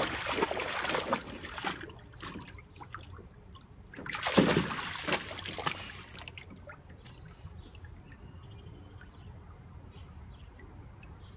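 Water splashing and sloshing in a plastic kiddie pool as a dog wades and paws through it, with the loudest splash about four seconds in. After that it settles into quieter trickling and dripping.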